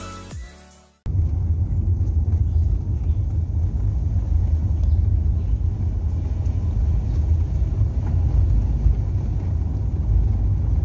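Steady low rumble of a car driving along a rough dirt track: road and wind noise heard from the moving vehicle. It starts abruptly about a second in, after electronic music cuts off.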